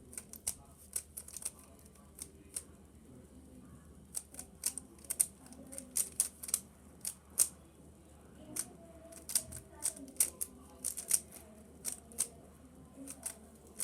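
Rubik's Cube being turned by hand, its plastic layers clicking as they snap round, in quick runs of several turns with short pauses between.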